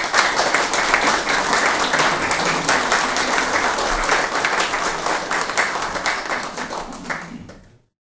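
Audience applauding, dense hand-clapping that fades near the end and then cuts off abruptly.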